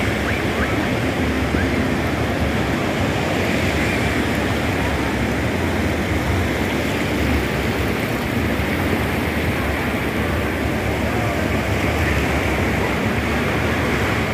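Steady rush of low surf washing onto a flat sandy beach, mixed with wind rumbling on the microphone.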